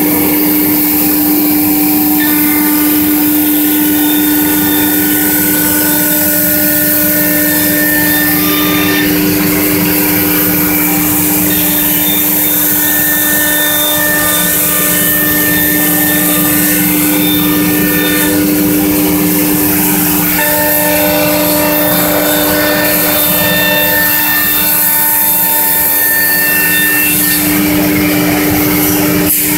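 Biesse Skill 1536 CNC router's spindle running at speed with a steady whine while the machine cuts a wooden part, higher tones coming and going.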